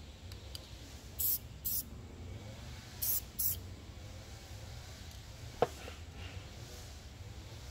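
Aerosol can of white spray paint hissing in four short bursts, in two pairs, a couple of seconds apart. A single sharp click a little past halfway through.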